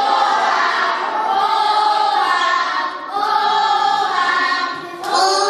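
A group of voices singing a song together in long held notes, with a short break about three seconds in.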